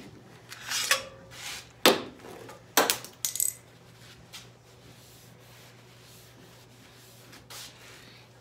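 Metal parts and tools clinking as they are handled and set down on a workbench: four or five sharp clinks in the first three and a half seconds, then only a faint steady hum with one more light clink near the end.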